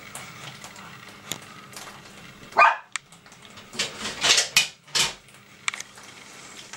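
A dog barking several times: once about two and a half seconds in, then a quick run of barks a little later.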